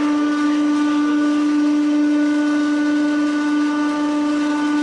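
Hydraulic press pump running with a steady, even hum while the ram retracts upward.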